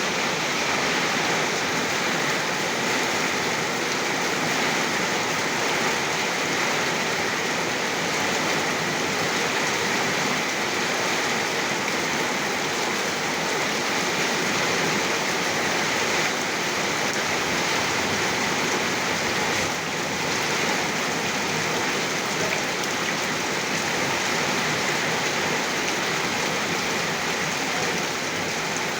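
Heavy rain falling steadily as an even, unbroken hiss.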